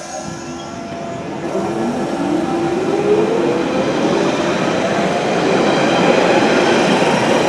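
London Underground tube train running, its motor whine rising steadily in pitch and the train growing louder over the rail noise.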